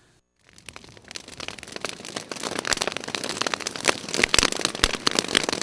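Fire crackling with many sharp pops, starting about half a second in and growing steadily louder.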